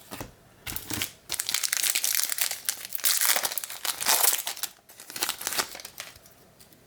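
Foil wrapper of a baseball-card pack crinkling as it is torn open and handled. It is a dense crackle lasting about four seconds, loudest in the middle.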